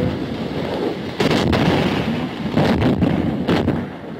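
Artillery bombardment: a continuous rumble of shellfire with several sharper bursts breaking through, heard on an old film soundtrack.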